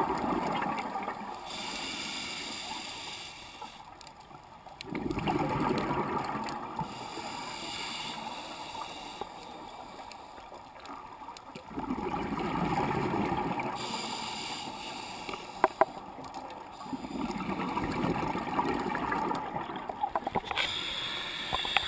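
Scuba diver breathing through a regulator underwater, repeating about every six seconds: a hissing inhale, then a long rush of exhaled bubbles. A few sharp clicks come about two-thirds of the way through.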